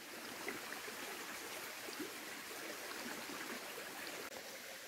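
A stream running steadily, a faint even rush of water.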